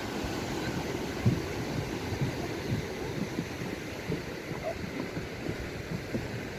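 Steady rush of Atlantic surf breaking on the shore, with wind buffeting the microphone in short, irregular low thumps.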